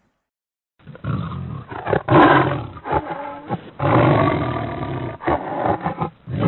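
A big cat roaring and growling in several long calls with short breaks, starting about a second in and loudest near the second call.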